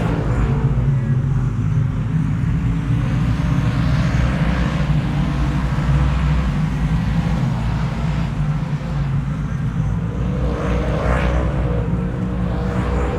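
Vehicle engine running with a steady, deep rumble.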